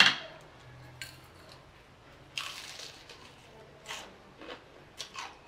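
Wet eating sounds from a mouthful of saucy spicy ramen noodles: a few short slurps, the longest about halfway through, with a sharp click at the very start.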